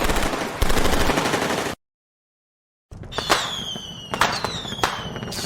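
Battlefield gunfire sound effect: a dense burst of rapid automatic fire cuts off abruptly. After about a second of silence come separate sharp shots, each trailed by a high falling whistle.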